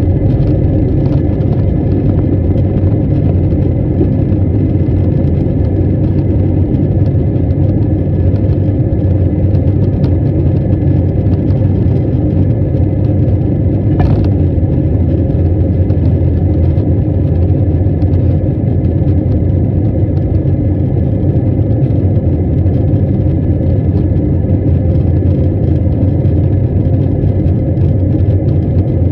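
Jet airliner engines at takeoff thrust, heard from inside the cabin: a loud, steady low rumble with a faint high whine above it, through the takeoff roll and the climb-out.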